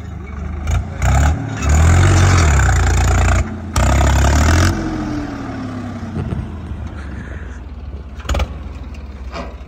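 Swaraj 744 XT tractor's diesel engine revving hard under heavy load as its rear tyres dig into sand and its front end lifts off the ground. It is loudest in two stretches between about one and a half and five seconds in, then runs on lower and steadier.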